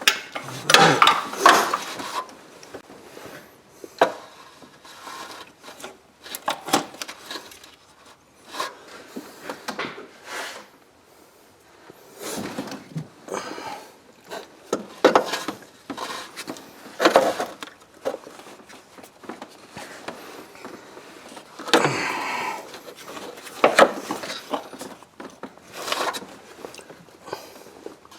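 Irregular rubbing, scraping and knocking of hand tools and engine parts being worked by hand during a spark plug change.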